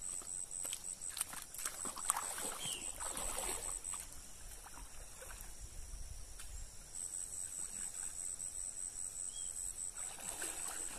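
Riverbank ambience: moving water, a high, pulsing insect trill that drops out for a few seconds midway, and a few sharp knocks in the first two seconds.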